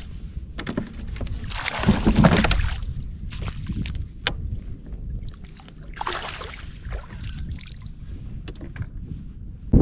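Water splashing beside a fishing kayak as a hooked fish is brought alongside and netted. The loudest splash comes about two seconds in, with another around six seconds, and a few sharp clicks and knocks in between.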